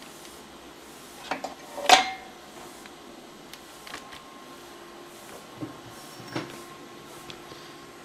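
A few scattered knocks and metallic clinks of tools and engine parts being handled. The loudest, about two seconds in, rings briefly. A steady hum runs underneath.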